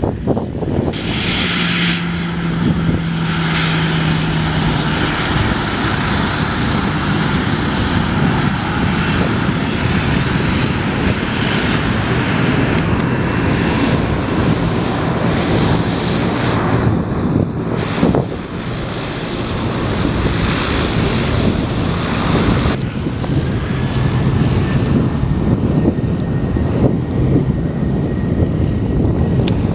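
Airplane engines running loudly, a dense hiss with a thin high whine over a low rumble. The hissing part stops abruptly about 23 seconds in.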